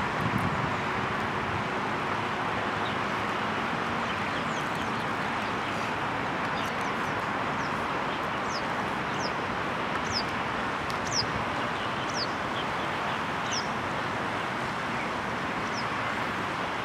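Steady outdoor rushing noise, with a small bird giving thin, high, falling chirps, about one a second in the second half.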